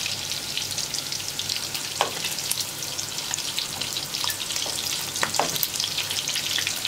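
Köfte meatballs frying in shallow vegetable oil in a pan, a steady crackling sizzle. Two short clinks of the metal tongs come about two and five seconds in, as meatballs are lifted out.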